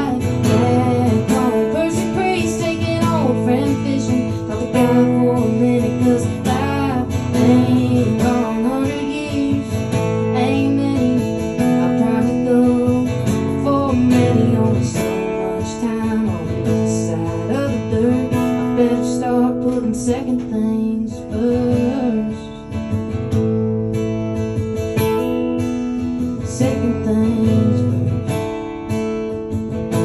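Acoustic guitar strummed and picked in a live song, carrying on steadily.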